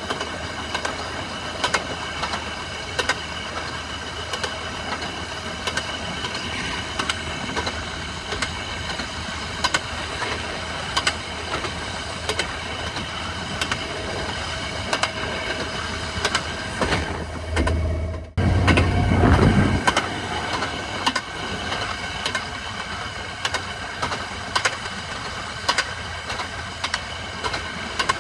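Rail motorcar (speeder) running along the track: a steady small-engine drone, with clicks from the rail joints about once a second. About two-thirds of the way in, the sound breaks off and picks up again with a louder low rumble for a couple of seconds.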